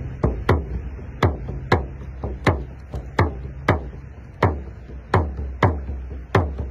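Hand-held hide frame drum struck with a padded beater in a steady beat of about two strokes a second, each stroke ringing briefly low.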